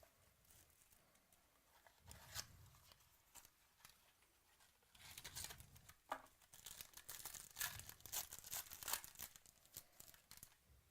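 Trading card pack wrapper torn open and crinkled by hand, with cards being handled: quiet, irregular tearing and crackling, busiest in the second half.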